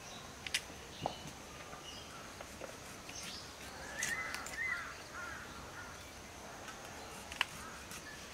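Rural outdoor ambience: a bird calls briefly about four seconds in over a faint steady high hiss, with a few sharp clicks and taps scattered through, the loudest shortly before the end.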